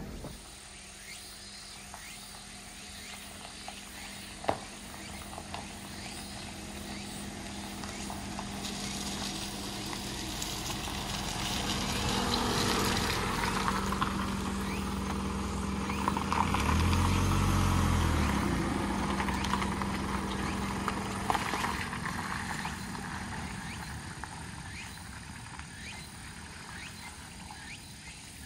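Mitsubishi Delica D:5 with its clean diesel engine running as it drives slowly over a rough forest track, with stones and gravel ticking and crunching under the tyres. The sound swells to its loudest a little past halfway, then eases off.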